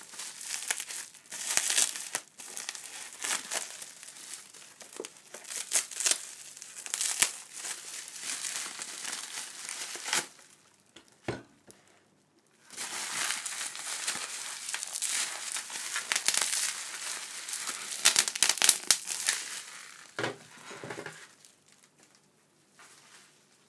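Plastic bubble wrap crinkling and rustling as it is handled and pulled off a small cardboard box, with a pause of about two seconds midway. Near the end come two soft knocks as the box is set down on the table.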